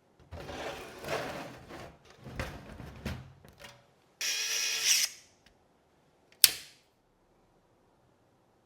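Hardware being handled during a PC build: irregular scraping and rustling, a short hissing whirr about four seconds in, then one sharp click.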